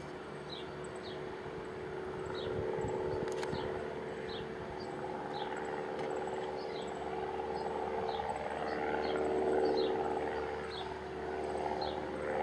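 Cessna 172's piston engine and propeller droning steadily as the plane climbs away after takeoff, swelling and easing a little in loudness. A short high chirp repeats about every half second over it.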